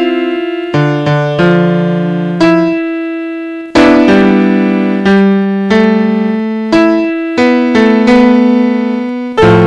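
Background piano music: chords and notes struck roughly once a second, each left to ring and fade, with a louder chord a little under four seconds in.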